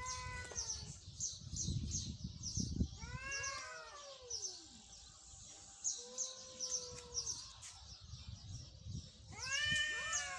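Cat meowing in long drawn-out calls, about four of them, most rising and then falling in pitch. Rapid short high chirps repeat in the background throughout.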